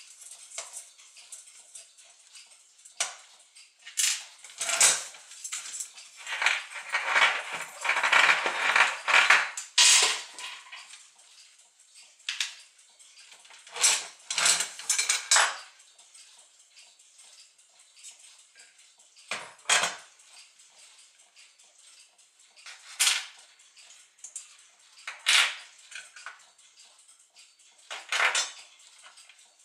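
Brass parts of a Gustav Becker clock movement clinking and clicking as the movement is taken apart by hand: a dozen or so sharp metal clicks and knocks, with a longer rattling clatter from about six to ten seconds in.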